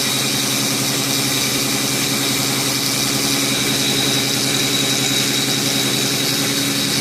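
Prolight CNC milling machine cutting at a 2 mm step-down: the spindle and end mill run with a steady high whine over a low hum. The operator remarks that the cutter should be a little sharper.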